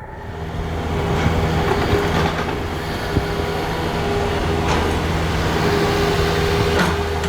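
Seibu Tamagawa Line electric train running, a steady loud hum holding a few low tones, with a handful of sharp clicks scattered through it.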